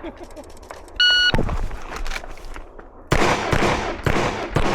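Pistol shots fired in quick strings during an IDPA stage, starting about three seconds in at about three to four shots a second. About a second in there is a short electronic beep.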